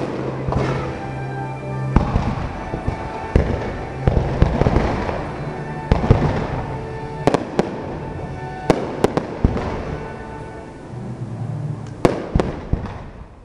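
Aerial fireworks bursting in a string of sharp bangs, about a dozen spread irregularly, with music playing underneath.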